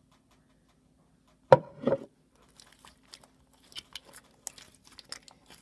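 Homemade borax slime being kneaded and stretched by hand: two short loud sounds about a second and a half in, then a run of small sticky crackles and pops as the slime is pulled and poked.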